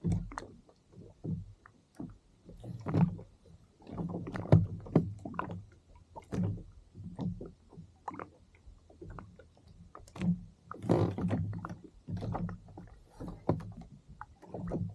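Small waves slapping and sloshing against the plastic hull of a sea kayak in irregular bursts, every second or so.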